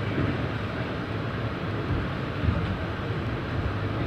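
New York City subway car in motion, heard from inside: a steady rumble of wheels on rail as the train runs along a station platform, with a few faint knocks.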